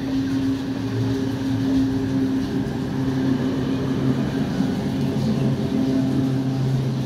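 Electric multiple-unit local train coaches rolling past close by, a steady electric hum over the noise of the wheels on the track.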